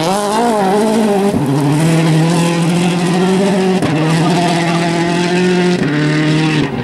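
Rally car engine running hard at high revs, its pitch wavering at first and then held nearly steady, with brief dips about a second and a half in and again near four seconds.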